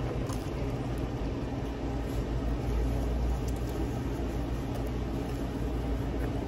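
Steady low rumble of indoor background noise, likely ventilation or machinery, with a few faint clicks.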